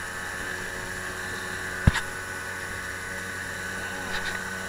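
Small fishing boat running across the water, its motor giving a steady hum, with one sharp knock about two seconds in and a lighter one near the end.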